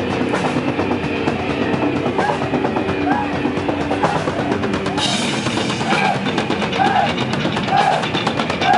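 A heavy metal band playing live, with a drum kit and distorted guitars. About five seconds in the drums open up into cymbal crashes, and a short high figure repeats about once a second.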